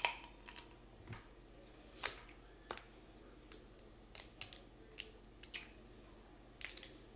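Snow crab leg shells cracked and snapped apart by hand: sharp, short cracks at irregular intervals, the loudest about two seconds in.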